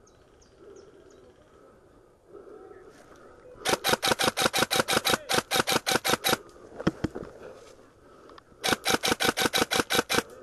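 Airsoft gun firing two long strings of rapid shots, about eight a second: the first runs nearly three seconds and the second about two, with a single shot between them.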